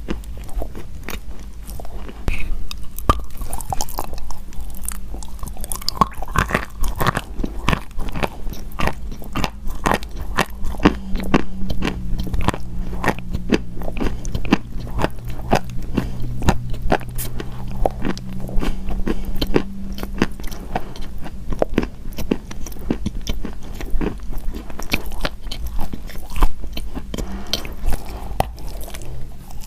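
A person biting and chewing pieces of chalk close to the microphone: a continuous run of crisp, dense crunches.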